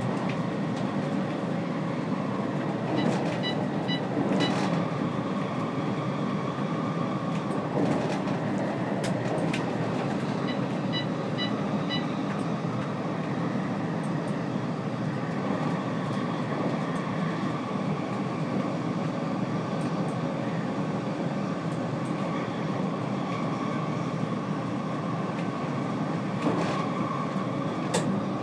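Stockholm metro C20 train running along the line: a steady rumble of wheels and motors with a constant whine and scattered clicks from the track. Two short runs of high electronic beeps sound, one a few seconds in and another about eleven seconds in.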